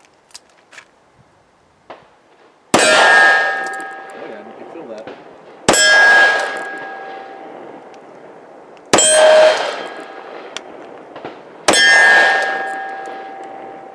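Taurus 85 Ultra Lite .38 Special revolver firing stout +P full-metal-jacket rounds at steel, about three seconds apart: four shots, each followed by the steel target ringing and fading over about two seconds, with a fifth shot right at the end.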